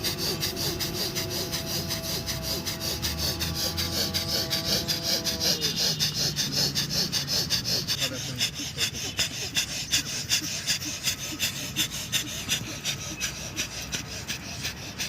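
Bhastrika pranayama (bellows breath): rapid, forceful breaths pumped in and out through the nose, about three a second, in an even rhythm. A held tone underneath stops about six seconds in.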